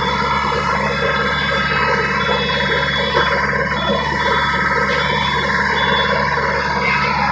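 An engine running steadily, heavy construction machinery such as a diesel excavator or backhoe, with a constant hum.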